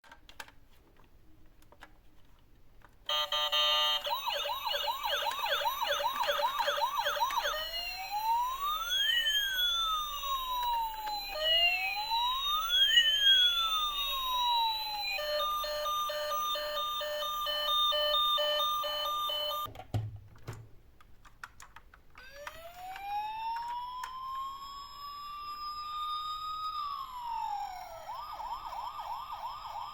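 Electronic emergency-vehicle siren cycling through its patterns: starting about three seconds in with a fast warble, then slow rising-and-falling wails that overlap, then a rapid beeping pattern. It cuts off with a low thump about two-thirds of the way through, then a wail rises again and drops into a fast warble near the end.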